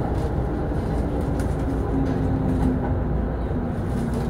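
E231-series electric train heard from the driver's cab as it slows along a station platform: a steady running rumble with a single motor whine falling slowly in pitch under braking.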